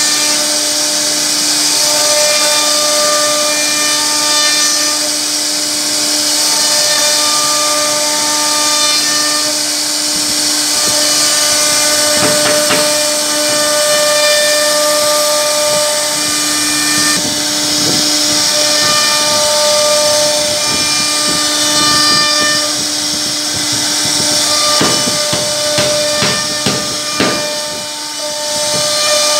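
CNC router spindle running, its bit cutting a carved pattern into a wooden panel with a steady hiss, while stepper-motor tones change pitch every few seconds as the gantry moves. Short bursts of rattling knocks come twice, once in the middle and again near the end.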